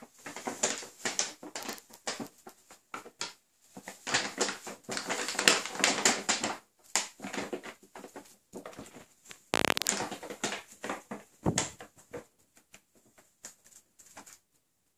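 Brown paper bag rustling and crinkling as a cat moves around inside it, in irregular spells of crackling. About ten seconds in there is a louder crumple of the paper, followed shortly by a soft thump.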